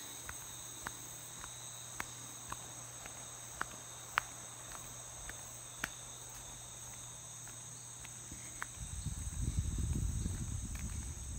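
Steady high-pitched chorus of insects in tropical forest, with short sharp ticks scattered through it. About nine seconds in, a low rumbling noise comes in underneath.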